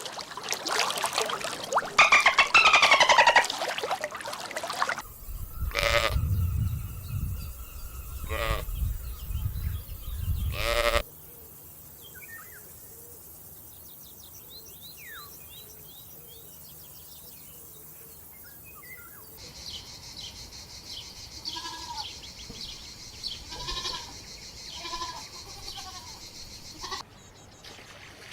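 Bleating farm animals: loud, drawn-out bleats in the first few seconds, then three more bleats over a low rumble. After about 11 seconds the sound drops to faint small-bird chirps and short calls.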